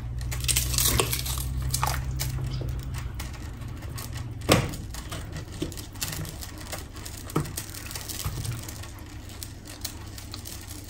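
Pieces of onion being handled and dropped into a pot of water, with scattered light knocks and clicks and one sharper knock about four and a half seconds in. A low hum sounds under the first few seconds.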